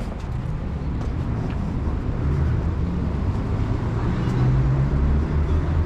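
Street traffic: a motor vehicle's engine running close by, with a low steady rumble that grows louder from about two seconds in as it draws nearer.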